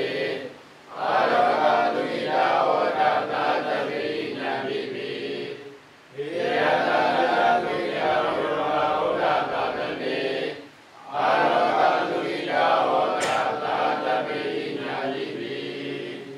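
Group of Buddhist monks chanting together in unison, in long phrases broken by brief breath pauses about every five seconds.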